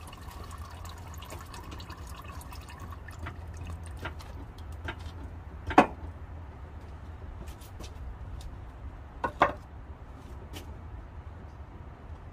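Engine oil trickling and dripping from the car's oil pan into a drain pan, with many small drip ticks. Two louder sharp taps come about 6 and 9.5 seconds in.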